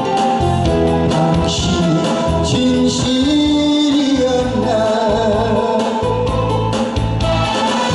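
A man singing a song through a microphone over instrumental accompaniment, the melody wavering and held on long notes.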